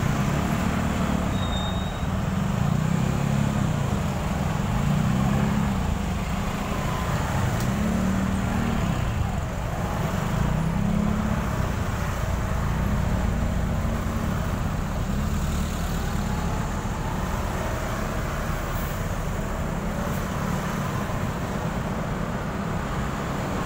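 Engines of motorcycles and cars idling in a stalled city traffic jam: a steady low rumble with no sharp events.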